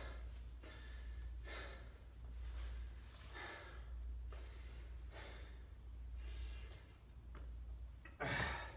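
A man breathing hard from the exertion of repeated jumping drills, in breath bursts about once a second, over a steady low hum.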